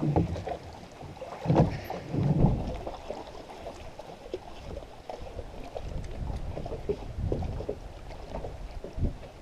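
Rowing boat under way: oars pulling through the water in irregular strokes, two louder ones in the first few seconds, over a low wind rumble.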